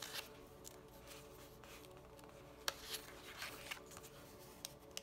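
Paper pages of a small paperback guidebook being handled and turned: soft rustling with a few light ticks, the clearest about two and a half seconds in, over a faint steady hum.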